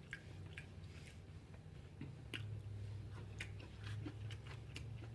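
A person chewing food close to the microphone, with irregular faint clicks and smacks of the mouth, over a steady low hum.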